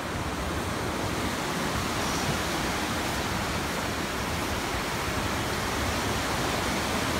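Fast mountain river rushing over boulders, a steady even noise.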